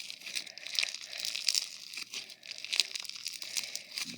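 Bead-filled slime being kneaded and squished by hand, mixing the beads through it: a steady run of small crackles and crunches from the beads.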